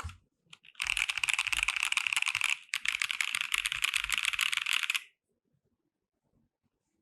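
Fast typing on a KBD67 Lite R3 mechanical keyboard fitted with Gazzew Boba U4T tactile switches and PBT keycaps: a dense run of keystrokes with a short break in the middle. The typing stops about two-thirds of the way through.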